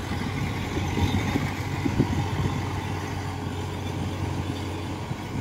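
Kubota DC105X combine harvester's diesel engine running steadily as the tracked machine creeps down a bank, with a few short knocks in the first couple of seconds.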